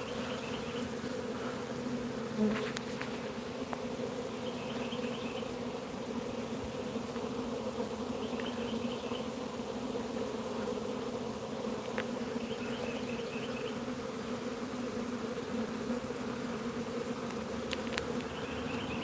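A swarm of honeybees buzzing around the swarm trap, a steady hum. A faint short high chirp repeats about every four seconds, and there is a light knock about two and a half seconds in.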